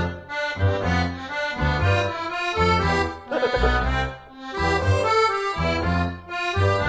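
Background music: a melody of held notes over a pulsing, repeating bass line.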